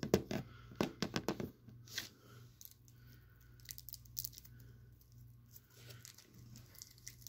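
A lollipop wrapper being torn and crinkled open by hand: a quick run of sharp crackles in the first second and a half, then scattered smaller crinkles.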